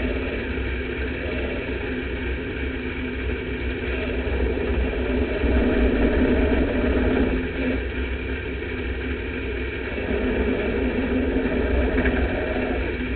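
Sport mod race car's V8 engine running, heard from inside the cockpit, getting louder about five seconds in, easing off about two seconds later, and picking up again about ten seconds in.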